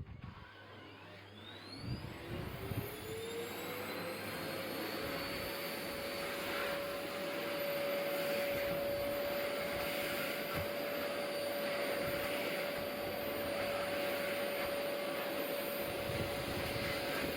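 Household vacuum cleaner motor spinning up after being switched on, its whine rising in pitch over the first few seconds, then running steadily with a constant whine and airflow hiss.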